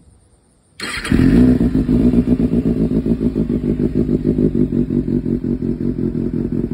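2024 Kawasaki ZX-6R inline-four with an SC-Project aftermarket exhaust starting on the button. It catches about a second in, is loudest just as it fires, then settles into a steady idle with a fast, even pulse.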